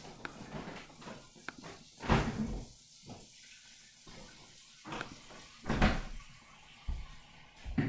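Room sounds of household knocks and thuds: a loud heavy thud about two seconds in and another just before six seconds, with a few lighter knocks between and near the end.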